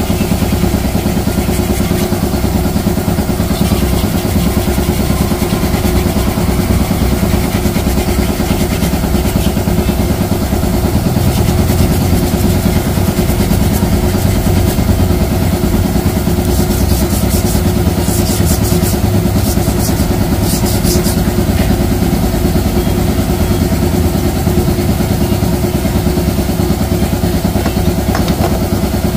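An engine idling steadily, with a short run of light metallic clicks about two-thirds of the way through.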